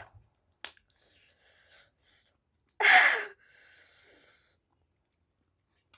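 A person eating extra-spicy Buldak ramen gives one sudden loud burst of breath about three seconds in. It is followed by about a second and a half of hissing breath, a reaction to the chilli heat.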